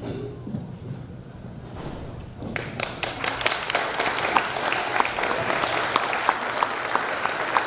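A low murmur of guests, then about two and a half seconds in a room full of wedding guests breaks into steady applause that keeps going.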